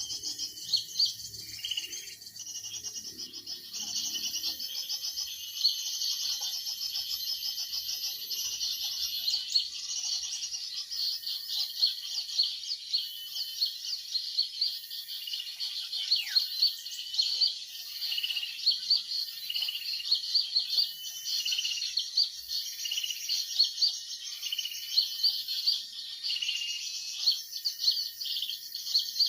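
Many small birds chirping and calling at once: a dense, unbroken chatter of short, high notes with frequent sharp, loud chips.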